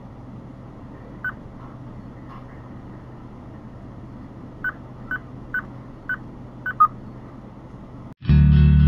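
Steady low hum of an idling car heard from inside the cabin, with a string of short electronic beeps about halfway through that come closer together near the end. Music with guitar cuts in abruptly just before the end.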